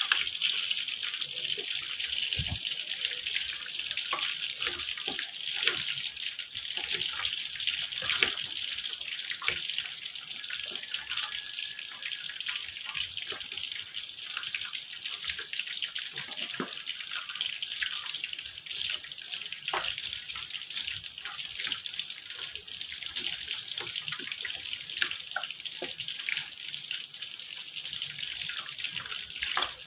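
Kitchen knife chopping ginger on a round wooden chopping board: irregular sharp taps, a few a second, over a steady hiss.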